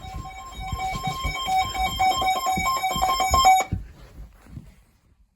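Emergency alert attention tone from a broadcast alert: a steady electronic alarm of two pitches with a buzzy edge, over irregular low thumps. It cuts off abruptly about three and a half seconds in, leaving quiet.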